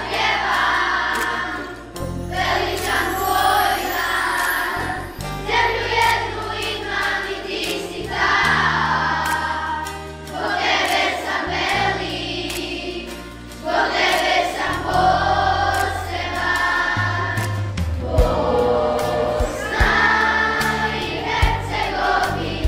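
Children's choir singing in unison in Bosnian, in phrases of a few seconds, over an instrumental accompaniment with a steady bass line.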